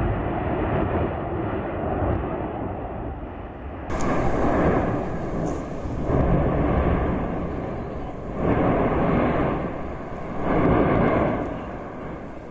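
Cumbre Vieja volcano erupting: a continuous low rumble, then about four swelling roars from the vent, roughly two seconds apart.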